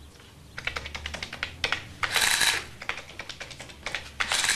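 Typing: a rapid run of key clicks, broken by two louder swishes, one about two seconds in and one near the end.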